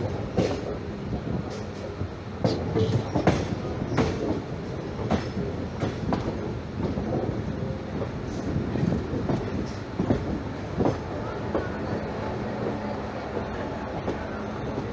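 Passenger train's steel wheels running over rail joints and points, heard from an open carriage doorway: a steady rumble broken by irregular sharp clacks every second or two.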